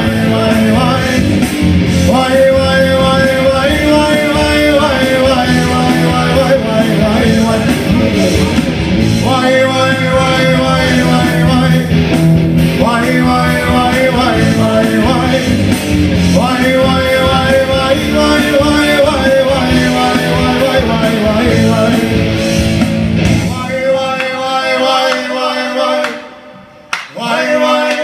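Live rock band: a male singer singing phrase after phrase over electric guitars. About three-quarters of the way through the instruments drop out and only voices carry on, with a brief break before the singing picks up again near the end.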